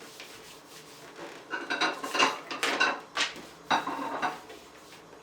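Dishes and cutlery clinking and clattering against each other in a short run of knocks with brief ringing, starting about a second and a half in and stopping after about four seconds.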